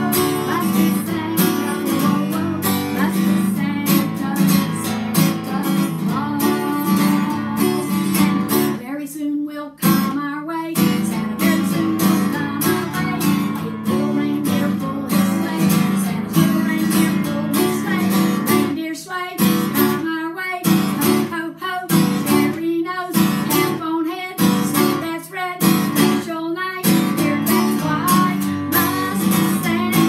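Steel-string acoustic guitar strummed in steady chords, with a woman singing along. The strumming stops briefly about ten seconds in, then breaks into a run of separate chord hits with short pauses between them before going back to steady strumming.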